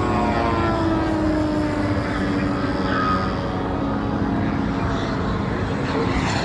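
RC Cessna 180 floatplane's motor and propeller whining as it flies past, the pitch dropping over the first couple of seconds as it passes and banks away, then holding steady as it climbs.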